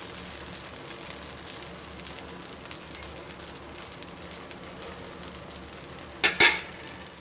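Dosa batter sizzling on a hot pan, a steady hiss with fine crackles, broken about six seconds in by one short, loud clatter.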